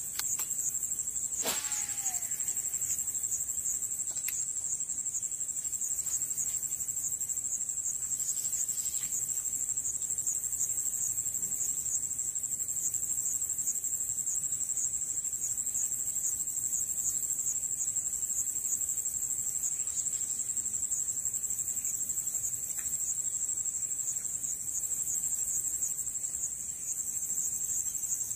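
A steady, high-pitched chorus of insects droning without pause, with one sharp click about a second and a half in.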